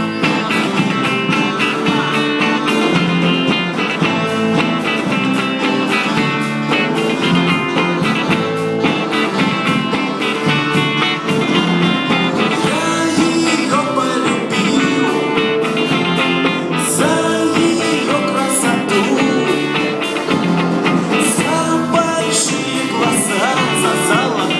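A vocal-instrumental ensemble playing live band music with guitar and a steady beat.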